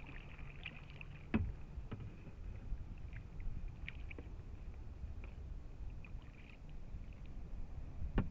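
Kayak being paddled: paddle strokes dipping and splashing in the water over a low rumble, with a sharp knock about a second and a half in and another near the end. A faint steady high hum runs underneath.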